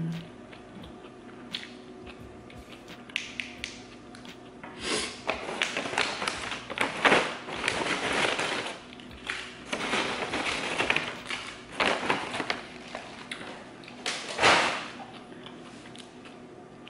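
A paper bag of tortilla chips rustling and crinkling in bursts as a hand digs through it for chips, with sharp crackles. It is loudest in the middle stretch and once more near the end.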